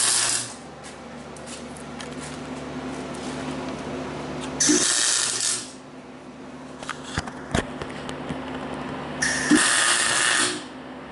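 Wire-feed welder arc crackling in three short bursts of about a second each, short welds laid on a steel race-car chassis frame rail. A steady low hum runs between the welds, with a couple of sharp clicks about midway.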